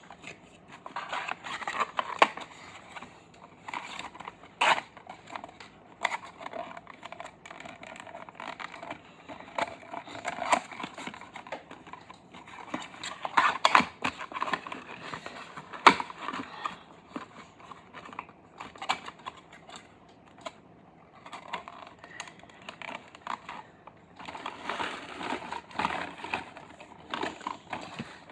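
Packaging being handled and opened: crinkling, rustling and tearing in irregular bursts, with sharp crackles.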